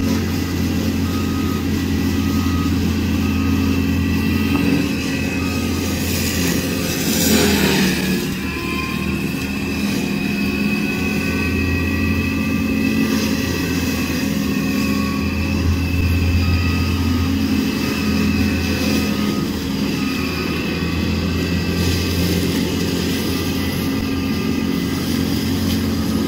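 Cat 299D3 XE compact track loader's diesel engine running hard with its HM418C mulcher head spinning: a steady loud drone with higher whining tones above it. A louder rushing swell comes and goes about seven seconds in.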